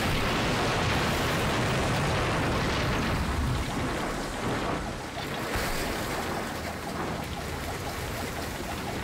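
Dense rumble of a car's fireball explosion, dying down about three and a half seconds in to a lower hiss and crackle of burning wreckage.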